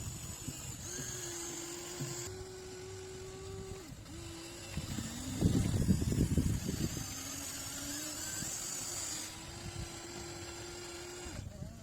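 Radio-controlled excavator's motor whining steadily, its pitch dropping and rising as the load changes. About five seconds in there are two seconds of loud scraping and crunching as the bucket digs into hard soil.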